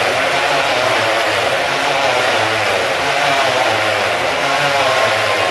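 Motorcycle engines running at high revs inside a steel mesh globe of death, loud and steady, their pitch wavering up and down.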